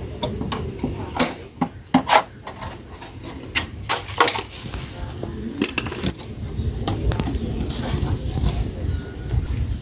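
Scattered knocks and clatter, a dozen or so irregular strikes, over a low rumble with faint voices.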